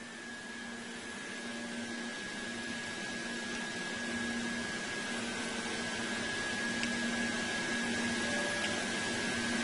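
Steady hiss with a thin, steady high tone and a faint low hum that comes and goes, slowly growing louder.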